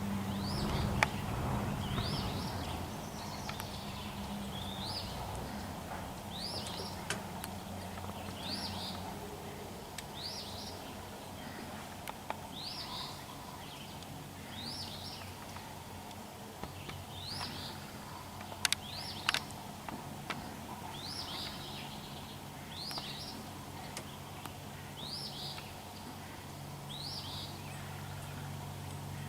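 A bird repeating a short, rising call about every second or so, over a low steady hum, with a few sharp clicks, two of them close together a little past the middle.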